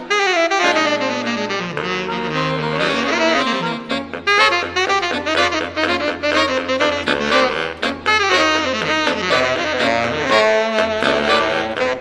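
Saxophone quartet playing jazz, several saxophones in parts together over a low held bass line. It opens with a falling run and then moves into quick, short, detached notes.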